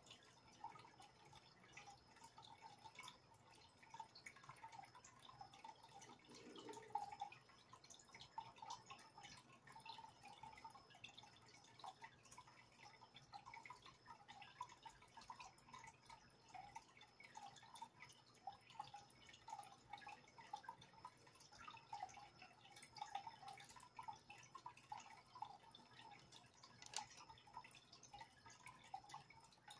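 Faint, continual dripping and bubbling of water in a home fish tank: a steady patter of small splashes over a low hum.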